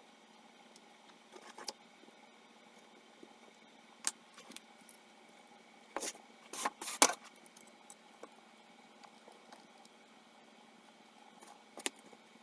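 Scattered light clicks and taps of small hard objects being handled, with a louder cluster of them about six to seven seconds in, over a faint steady hum.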